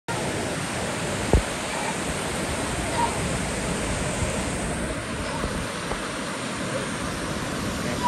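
Steady rush of water from a small waterfall pouring over a weir into a shallow pool. A single short low thump about a second in, and faint voices in the background.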